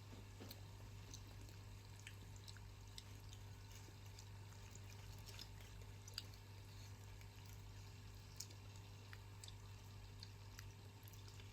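Near silence: room tone with a steady low hum and faint scattered small clicks.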